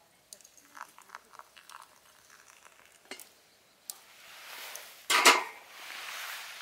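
A few light clicks and taps, then a hiss that swells, flares loudly for a moment about five seconds in and settles into a softer steady hiss.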